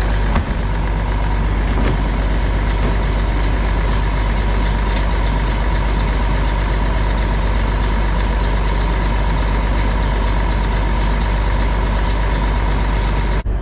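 Farm machine's engine idling steadily as it warms up after a hard cold start.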